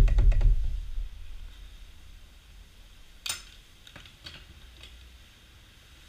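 A fuel nozzle and a plastic gas can being handled at a pump: a low rumble with rapid light clicking for about the first second, then one sharp metal clack a little over three seconds in as the nozzle goes back on the pump, followed by a couple of faint clicks.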